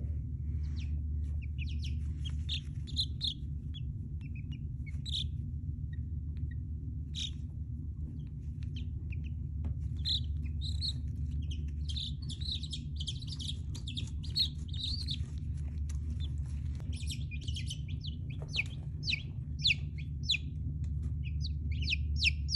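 Baby showgirl silkie chicks peeping: short high chirps that come thicker after about ten seconds and turn into quick, sharply falling peeps near the end. A steady low hum runs underneath.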